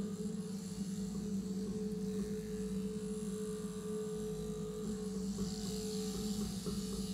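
Overhead electric sheep-shearing machine running: the motor and handpiece give a steady buzzing hum as the cutter works through the fleece, and a brighter hiss joins in about five seconds in.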